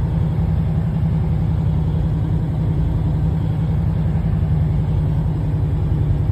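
Semi-truck's diesel engine running steadily, a constant low drone.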